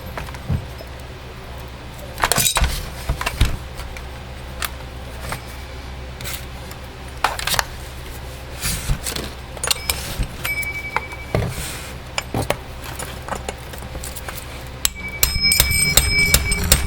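Metal tools clinking and a hammer striking a steel extension held against a Husqvarna 120 Mark II chainsaw's clutch to knock it loose, the piston held by rope stuffed in the cylinder. Scattered clinks and knocks at first, then a quick run of ringing metal strikes near the end.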